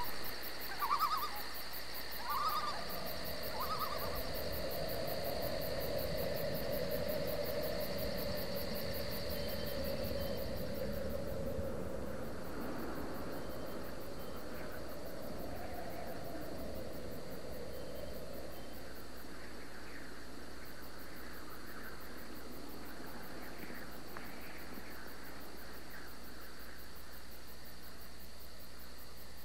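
Owl hooting, a few short hoots in the first four seconds, over a steady low tone that fades out about halfway through; after that, faint insect chirring carries on.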